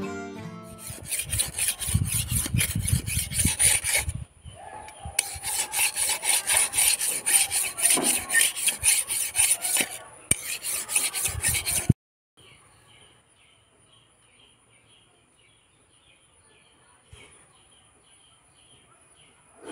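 Curved steel sickle blade being sharpened on a whetstone: quick back-and-forth rasping strokes, about four a second, in spells with short breaks. It stops abruptly about twelve seconds in, leaving only faint background.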